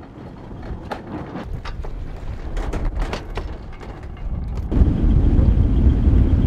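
Strong wind buffeting the microphone on a sailboat under way, with scattered sharp knocks and clicks. About three-quarters of the way through, the wind noise jumps suddenly to a much louder low rumble.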